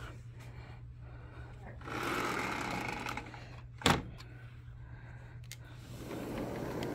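Sliding patio door rolling along its track, then a sharp thunk about four seconds in as it hits the frame; a sliding screen rolls again near the end. A steady low hum runs underneath.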